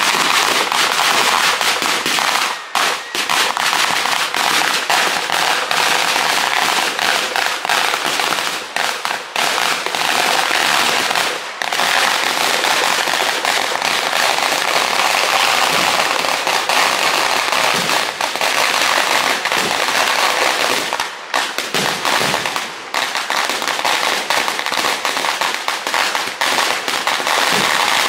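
Firecrackers of a Kerala temple-festival fireworks barrage going off on the ground in an unbroken, dense rattle of rapid bangs and crackling, with a few brief dips.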